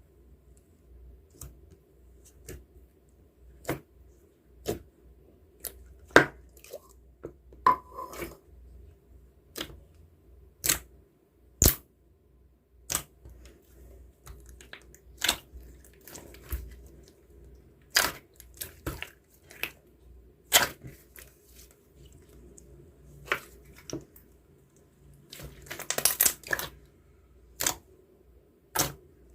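Sharp clicks and crackles at irregular intervals, about one a second, with a dense run of crackling near the end.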